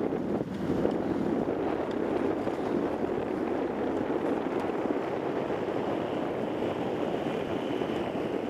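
Wind buffeting the microphone: a steady rushing with no clear tone.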